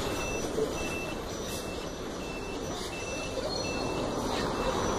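City bus and street traffic going past on a cobblestone street, a steady low rumble, with a thin high-pitched beeping tone that cuts in and out.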